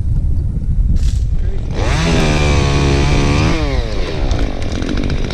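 Two-stroke chainsaw revved up about two seconds in, held at high speed for about a second and a half, then falling back in pitch toward idle.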